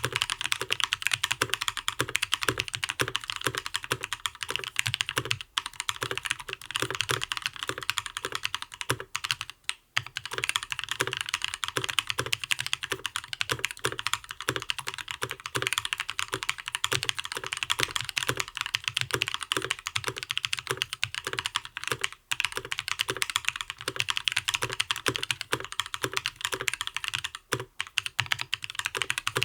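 Continuous fast typing on a custom mechanical keyboard: a Gentoo case with lubed Gazzew Linear Thock linear switches, an aluminium plate, case foam and ePBT Soju keycaps. The keystrokes run on steadily, with a few brief pauses.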